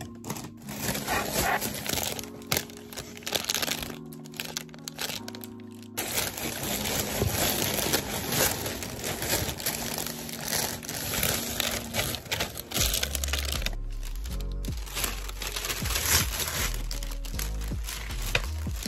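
Thin plastic shopping bags crinkling and rustling as hands press and handle them, over background music.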